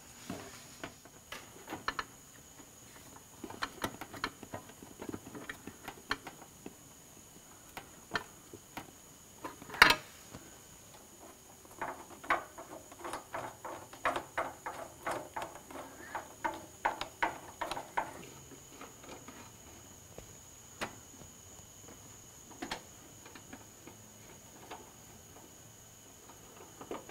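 Light clicks and taps of a hand tool on metal and plastic while fastening a Honda S2000 headlight's mounting bolts, with one louder knock about ten seconds in and a run of quick, even clicks from about twelve to eighteen seconds in.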